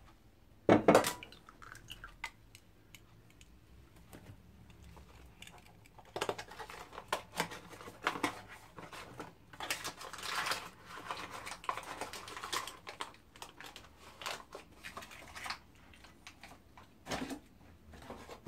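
Eggs being cracked and their shells broken open by hand over a steel mixing bowl of milk: scattered small cracks, clicks and crackles, thickest in the middle of the stretch.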